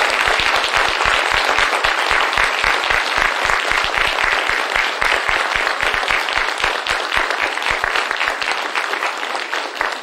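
Audience applauding with many hands clapping at once, easing off slightly near the end.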